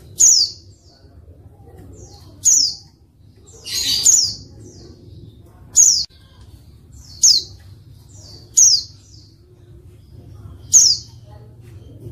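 Female white-eye (pleci) giving short, high chirps, each falling sharply in pitch, roughly every one and a half seconds. About four seconds in comes one longer, noisier burst. A faint low hum runs underneath.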